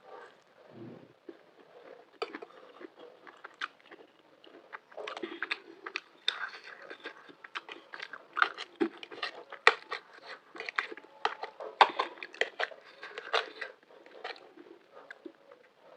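Close-up mouth sounds of someone eating macaroni with green chilies: chewing with quick crunchy, wet clicks. Sparse at first, then much denser from about five seconds in.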